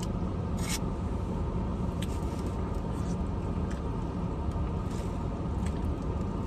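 Steady low rumble inside a parked car's cabin, with a few faint clicks and a short hiss about a second in.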